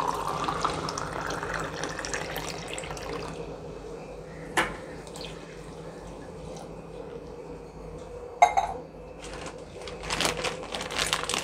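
Water poured from a glass into a kadhai of masala gravy, splashing with a slightly rising pitch for the first few seconds. Later come two sharp clinks and some louder clattering near the end.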